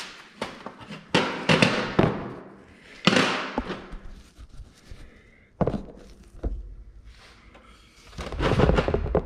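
Metal engine parts, the pump and its mounting bracket, being picked up, handled and knocked together: a series of irregular knocks and clanks, with a longer clattering rattle near the end.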